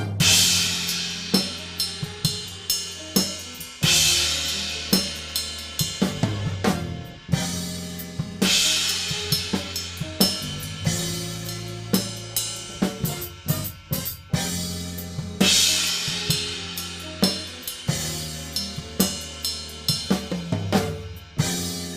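Drum kit played in a big band chart: busy snare, hi-hat and bass drum, with a loud crash cymbal accent about every four seconds.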